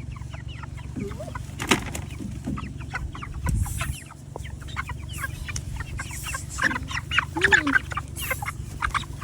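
A flock of young meat chickens peeping and cheeping in many rapid, overlapping short calls, over a steady low rumble.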